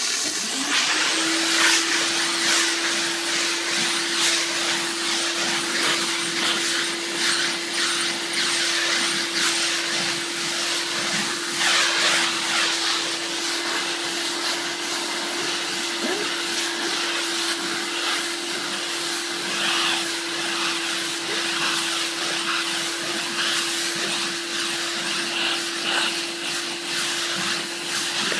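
Steam cleaner wand jetting steam onto a carpeted car floor mat: a steady hiss with one constant tone running under it.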